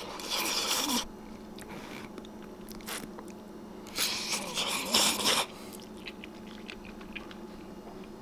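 A person slurping spicy instant ramen noodles: two hissing slurps, one right at the start and a longer one about four seconds in, with soft chewing and mouth clicks between.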